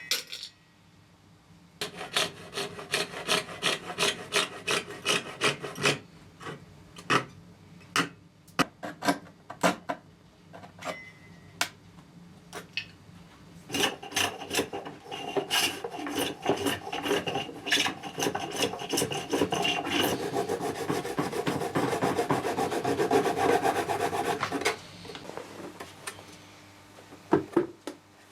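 Hand filing: quick back-and-forth rasping strokes on a workpiece. They start in a steady run, thin out to scattered strokes, then become a faster, continuous scraping for about ten seconds before stopping.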